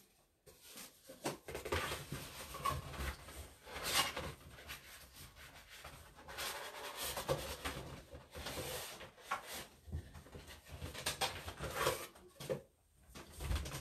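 Someone rummaging and reaching behind a desk: irregular rubbing and scraping with scattered knocks and low thumps.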